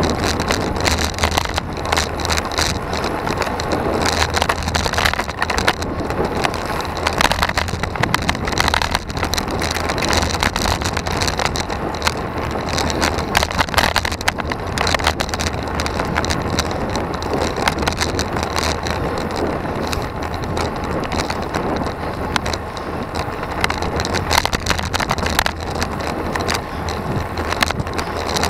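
Road and wind noise picked up by a camera mounted on a road bike's handlebar while riding uphill, with many small irregular knocks and rattles from road vibration.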